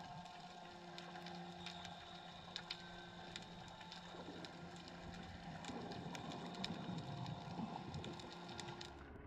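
Underwater ambience picked up by a submerged camera: scattered sharp clicks and crackles over a steady low hum, with a rougher rumbling swell from about four seconds in.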